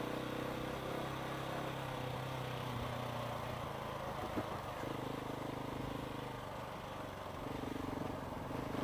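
KTM 690 single-cylinder motorcycle engine running as the bike is ridden, its pitch shifting with the throttle about halfway through and again near the end.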